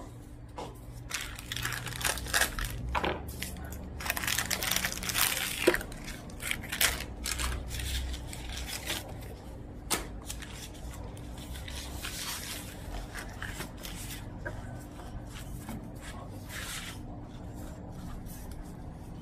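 Plastic wrapping of a tube of ready-made puff pastry crinkling and tearing as it is opened, then the baking paper rustling as the dough sheet is unrolled and smoothed, with a couple of sharp clicks along the way.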